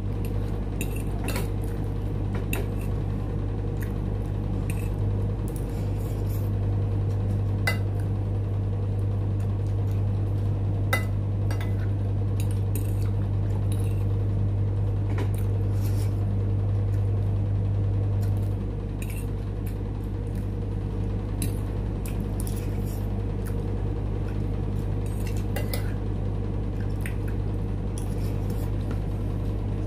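A fork and fingers on a plate of food, making scattered light clinks and scrapes. Under them runs a steady low machine hum, which grows louder from about five seconds in until about eighteen seconds in.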